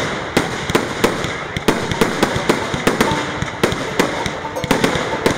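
Fireworks display going off: a dense, irregular run of sharp bangs and crackling, several shell bursts a second.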